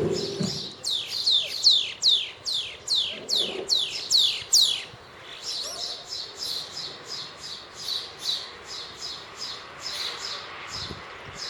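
A bird singing a rapid series of sharp downward-slurred whistles, about three a second, for several seconds. Then comes a steady run of shorter, high chirps at a similar pace.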